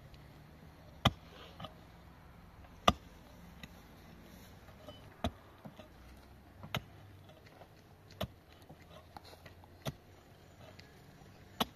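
Pickaxe striking hard, stony soil: about seven sharp blows, one every second and a half to two seconds, breaking up the ground for digging.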